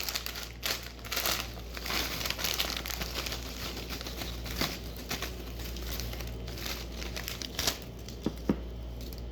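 Crinkling of a potato chip bag and the rustle of chips being taken out and laid on a plate, in irregular crackly bursts, with a few sharper clicks near the end.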